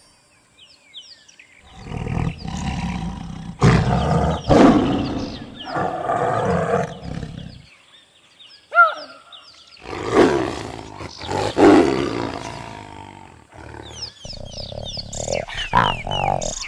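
Leopard calling in low growling roars, in two bouts, one starting about two seconds in and another about ten seconds in. Birds chirp faintly in the background.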